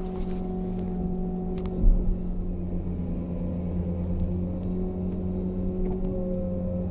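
Excavator's diesel engine running steadily, heard from the operator's cab, with higher tones that shift a little over the hum and one loud clunk about two seconds in.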